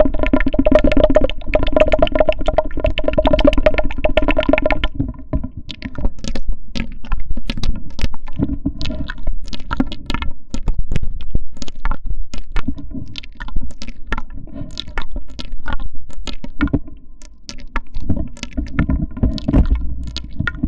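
Foley sounds imitating a washing-machine drain hose: a pulsing, pitched drone for about the first five seconds, then rapid, irregular clicks and taps over a fainter drone.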